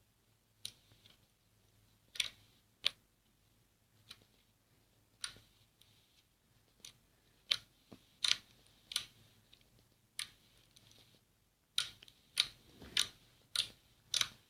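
Crunchy slime being pressed and squeezed in an ASMR slime video: about fifteen short, sharp crackling pops at irregular intervals, coming faster near the end.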